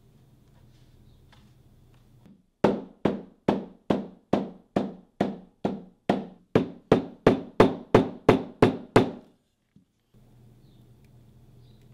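Hammer striking layered leather on a workbench: about seventeen sharp blows at two to three a second, getting slightly faster and louder toward the end.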